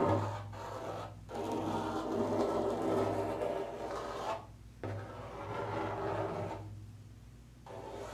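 A feather scraped and brushed across the skin of a frame drum, making a scratchy rubbing in several strokes with short breaks between them. The rubbing grows quieter near the end.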